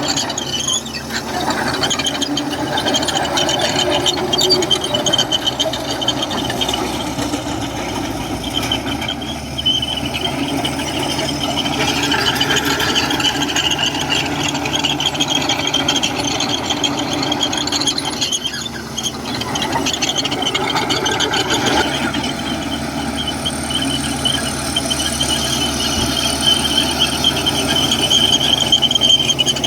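Komatsu crawler bulldozer working, its diesel engine running steadily under a continuous high-pitched squeal of the steel tracks.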